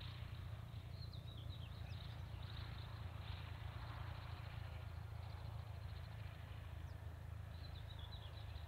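Light single-engine propeller aircraft taxiing at idle, its engine a low steady drone. Birds chirp briefly about a second in and again near the end.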